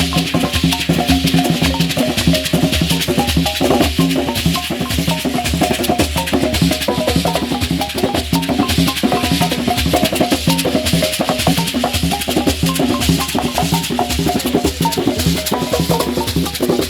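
Ugandan traditional instrument ensemble playing a fast, unbroken percussive rhythm, with short pitched notes running over the beat and a steady shaking rattle on top.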